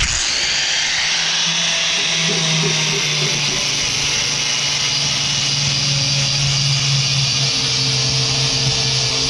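Angle grinder with a sanding disc starting up at once and running steadily under load, grinding down a cracked plastic weld on a plastic canoe hull.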